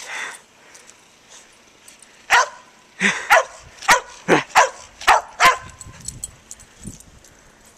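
Dog barking: about eight short, sharp barks in quick succession, each dropping in pitch, between about two and six seconds in.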